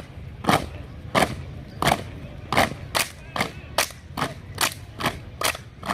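A squad of recruits doing a drill exercise in unison, making a steady series of sharp strikes. They start about one every 0.7 seconds and quicken to about two a second.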